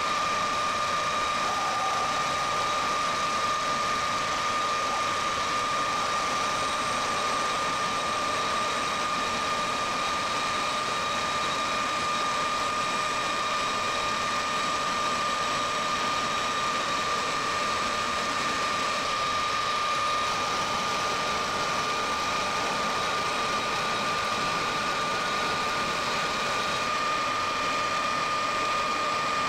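Metal lathe running, plain-turning a bar of round stock down to diameter with a carbide tool: a steady high whine from the machine over the hiss of the cut.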